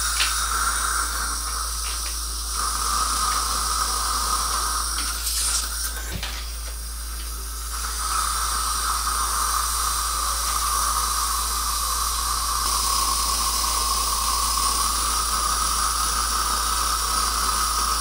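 Implant surgical handpiece running with a steady whine as it drills the implant site in a fresh extraction socket, over a constant hiss of irrigation and suction. The whine stops about two and a half seconds in and starts again after about five seconds.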